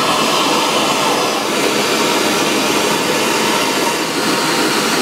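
Handheld gas torch burning with a steady hiss, its flame held on a copper tee fitting to heat the joint for soldering.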